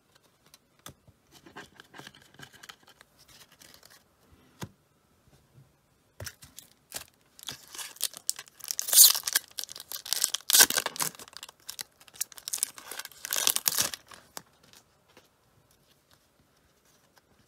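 A foil trading-card pack is torn open and its wrapper crinkled, with loud crackling and tearing from about six seconds in until about fourteen seconds in. Before that come a few seconds of light clicks from cards being handled.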